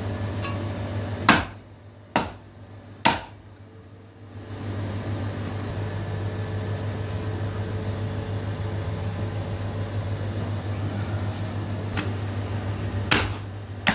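Heavy forged butcher's meat axe chopping through beef ribs into a wooden block: three sharp chops about a second apart, then a lighter chop and a heavier one near the end. A steady low hum runs underneath.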